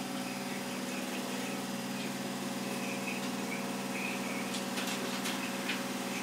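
A small motor humming steadily, with a few sharp clicks near the end.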